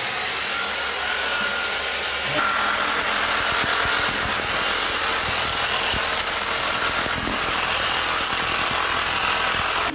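Corded electric drill running steadily as it bores a hole into a plastered masonry wall; its pitch steps up slightly about two and a half seconds in.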